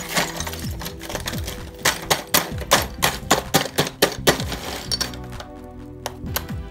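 Ice cubes clinking and knocking against each other and the bowl as a hand digs through a plastic-lined bowl of ice, in quick irregular clicks that ease off for a moment near the end. Background music with sustained notes plays under it.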